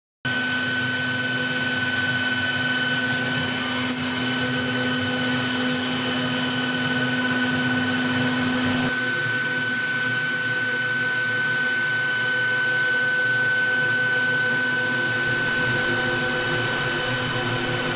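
CNC router spindle running steadily with a high, even whine as a thin carving bit mills into a wooden panel. A lower hum drops out about halfway through.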